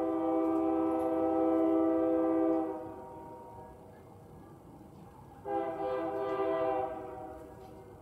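Diesel freight locomotive horn sounding a chord of several notes: a long blast that cuts off about two and a half seconds in, then a shorter blast starting about five and a half seconds in.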